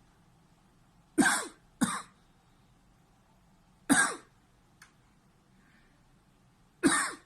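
A man coughing: two coughs in quick succession about a second in, another about four seconds in, and a fourth near the end. Each is a reflex cough set off by pressing on a schwannoma of the vagus nerve in his neck.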